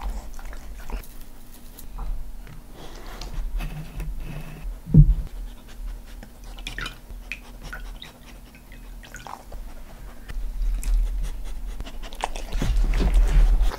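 Senior staffy-mix dogs licking, lapping and panting close to the microphone, with small wet clicks and knocks. There is one sharp thump about five seconds in and a louder burst of licking near the end.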